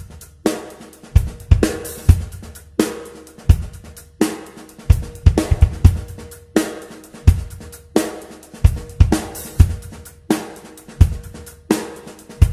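Background music: a drum kit playing a steady beat of kick, snare, hi-hat and cymbals, with no other instruments.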